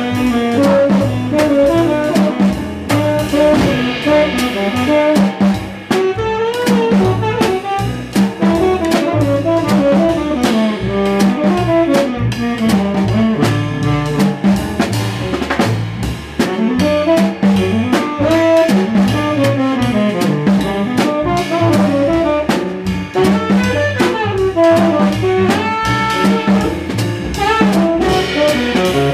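Small jazz group playing live: a drum kit struck with sticks on snare and cymbals, with plucked double bass, piano and a horn carrying the lead line.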